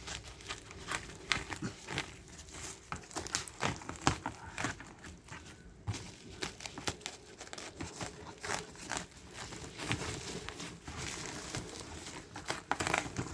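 Plastic parcel packaging crinkling with irregular crackles as it is handled and opened.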